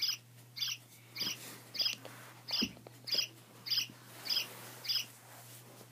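Plush toy bird's sound box playing a recorded bird call when squeezed: a series of about nine short, high chirps, evenly spaced about every 0.6 seconds.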